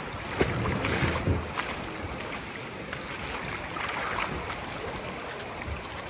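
Swift floodwater of an overflowing creek rushing steadily, with a few sharper splashes in the first second or so.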